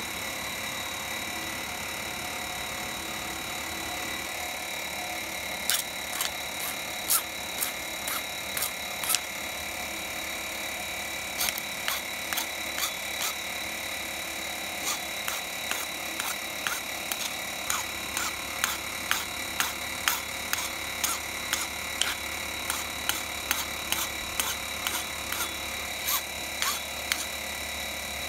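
Light, sharp metal-on-metal clicks and taps, irregular at about one to two a second, starting about six seconds in, as steel pliers and a steel bar work a small steel scroll against an anvil. A steady hiss runs underneath.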